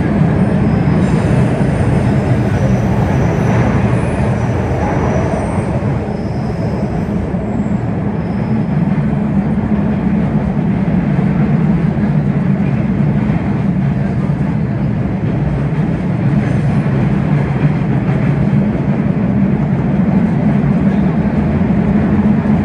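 MBTA Red Line subway train running through a tunnel, heard from inside the car: a steady, loud low rumble of the wheels on the rails, with faint high squeals on and off in the first several seconds.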